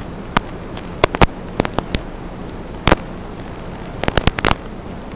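Steady radio static hiss with a faint hum, broken by about a dozen sharp, irregular crackles and pops that bunch together near the end, typical of an analog FPV video link's receiver audio.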